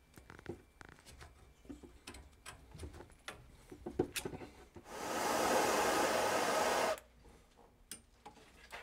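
Light clicks and taps of copper pipe and fittings being handled. About five seconds in, a propane torch hisses steadily for about two seconds, heating the copper joints for soldering, then cuts off abruptly.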